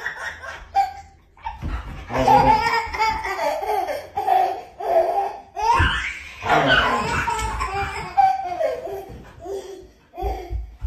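A toddler laughing hard, belly laughs in repeated bursts with short breaks between.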